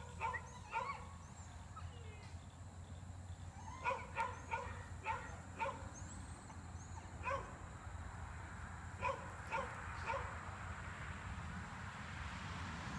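Kelpie barking at sheep, as a yard dog does to move them: short, sharp barks in bursts, a quick cluster at the start, a run of about five some four to six seconds in, then single barks spaced a second or two apart.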